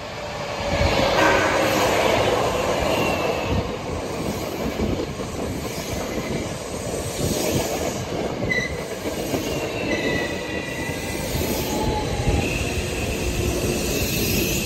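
Hankyu electric train passing close by: a loud rumble of wheels on the rails that swells up within the first second and holds, with a rapid clatter and thin, high wheel squeals coming and going over it.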